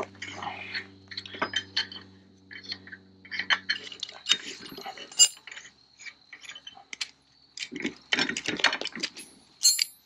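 Ratchet wrench and socket clicking and clinking on steel as bolts are backed off a pulverizer's roller bearing bracket, with a quick run of clicks near the end. A faint steady low hum stops about four seconds in.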